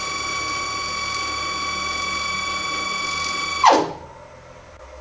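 Stepper motor of a desktop injection molding machine driving the clamping unit home at fast speed: a steady high whine with overtones. It cuts off abruptly about three and a half seconds in with a short clack as the clamp stops, leaving a faint hum.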